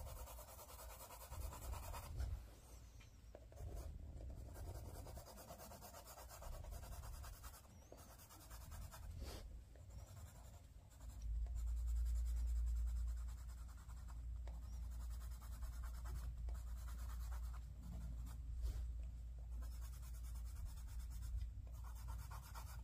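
Colored pencil scratching across drawing paper in stretches of shading strokes, with a low rumble joining about halfway through.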